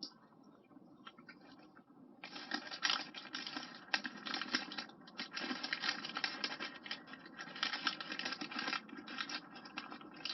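Close-up scratchy rustling and crinkling of paper takeaway packaging being handled around the fries. It starts about two seconds in and thins out near the end.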